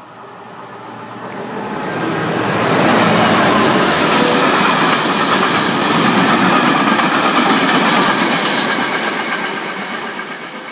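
Freight train passing at speed: steady wheel-on-rail noise that builds over the first two to three seconds, stays loud while the wagons go by, then fades as the train draws away.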